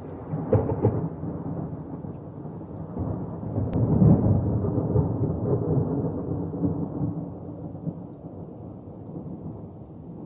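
A deep, rolling rumble that swells about half a second in and again around four seconds in, then slowly dies away.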